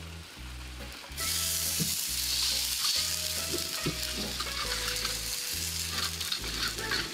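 Water poured into a hot wok of fried scallion, ginger and chili, setting off a loud sizzle that starts suddenly about a second in and keeps going.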